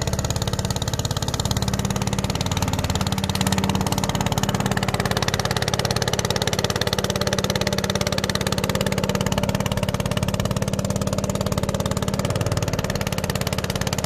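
Motor of a long, narrow wooden passenger boat running steadily under way, with a fast, even pulsing beat, over a rush of wind and water.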